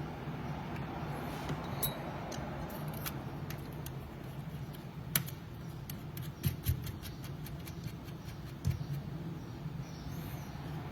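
Scattered small clicks and taps of tire-truer parts being handled and fitted together (wheels, spacers and drive hubs slid onto the shaft), over a steady low background hum.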